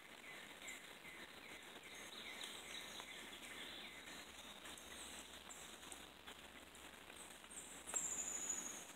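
Birds and insects calling: a run of short chirps at about three a second that fades after about two seconds, scattered short high calls, and about eight seconds in a louder, high, thin note that slides slowly downward for nearly a second.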